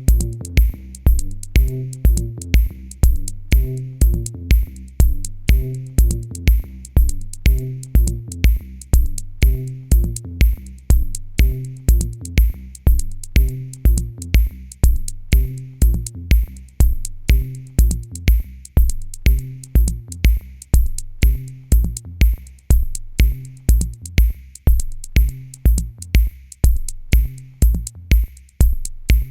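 Electronic music with a drum machine beat, about two strong kicks a second, over a repeating bass line and crisp high hi-hat ticks.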